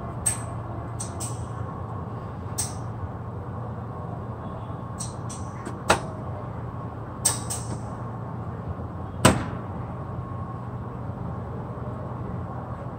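Sharp clicks and knocks, about five, the loudest about nine seconds in, as connectors and wires in an air-conditioner control box are handled, over a steady low machine hum.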